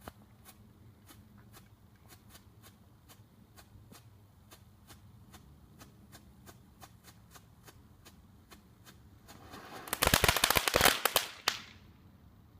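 Small consumer firework going off. A hiss builds for under a second, then a rapid string of sharp cracks lasts about a second and a half and cuts off suddenly.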